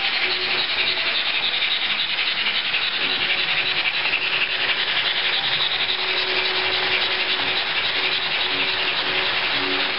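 ESU sound decoder in a Roco HO-scale BR 03.10 model steam locomotive playing fast steam chuffing through the model's small speaker, the beats running together into a steady hiss as the train runs at speed.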